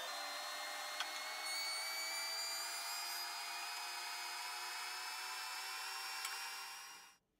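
Combination planer-thicknesser running while a walnut board is fed across its jointer bed: a steady machine whine with hiss, its pitch creeping slowly upward, cutting off suddenly near the end.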